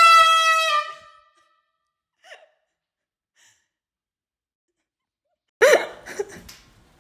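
Canned air horn blasted right beside a sleeping man's head: one loud, piercing blast that ends about a second in, its pitch sagging slightly as it cuts off. Near the end, a short, sudden voice sound with a few knocks.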